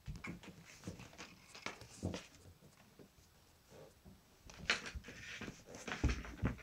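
Irregular rustling, scratching and light knocks in a few clusters, with dull thumps near the start and the end: a kitten scrambling about inside a padded fabric bag on a wooden floor.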